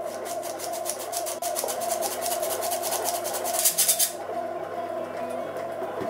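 Rapid rhythmic scraping strokes of mixing in a bowl, about six a second, growing loudest just before they stop about four seconds in, over a steady hum.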